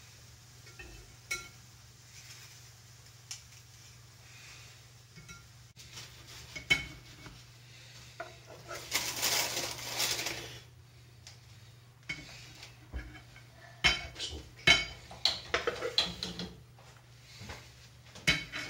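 Metal cutlery clinking and scraping against china plates while food is served, in scattered separate clinks that come thick and fast over the last few seconds, with a longer rushing scrape about nine seconds in.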